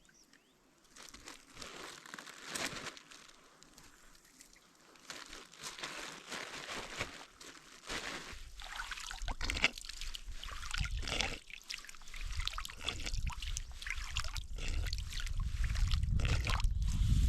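Water splashing and trickling in irregular bursts, sparse at first and busier and louder in the second half, with a low rumble building toward the end.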